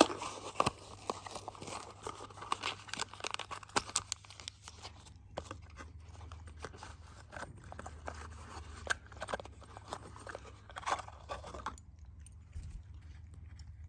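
Packaging crinkling and tearing in irregular crackles as a new genuine Stihl piston is unwrapped by hand; the handling stops about twelve seconds in.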